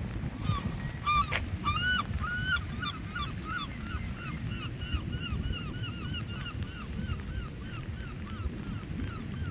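A bird calling in a long fast series of short notes, about three to four a second, each note rising and falling in pitch; the calls are loudest about a second in and slowly fade. A single sharp click sounds near the start, over a steady low rumble of wind on the microphone.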